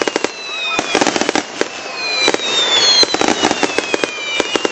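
Fireworks going off in quick succession: a dense run of sharp crackling pops, overlaid by several whistling shells whose whistles each slide slowly down in pitch over a second or two.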